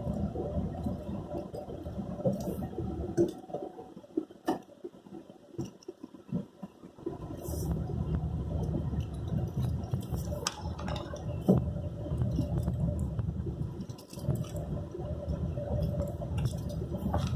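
Car cabin noise while driving on a rough road: a low rumble of the engine and tyres with knocks and rattles from bumps. The rumble drops away for a few seconds, then picks up again.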